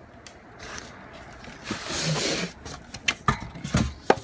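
Foam packing and cardboard scraping and rubbing as a large spoked hub-motor wheel is pulled out of its box, followed by a few sharp knocks and clicks near the end as it is handled.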